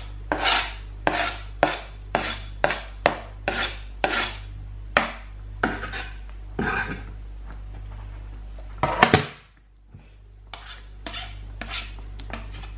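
A plastic cutting board and utensil knocking and scraping against the rim of a stainless steel sauté pan as chopped parsley is scraped off into the sauce, about two knocks a second. A louder clatter comes about nine seconds in, then a few lighter taps.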